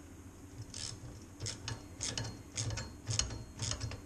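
Ratchet wrench clicking in short back-and-forth strokes, two or three a second, as a bolt on the trailer's fender bracket is tightened.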